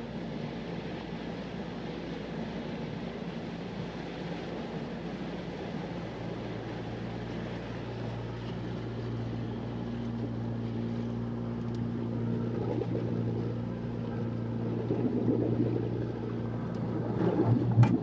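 An engine running steadily with an even low hum, heard from inside the cabin. The hum grows a little louder about halfway through.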